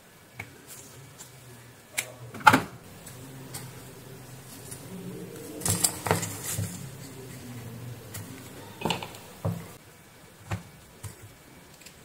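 Hand-work handling noises: a scattered series of small clicks and light knocks as a wire is worked with pliers and a plastic lamp holder is handled, with the loudest knocks about two and a half seconds in and around six seconds in.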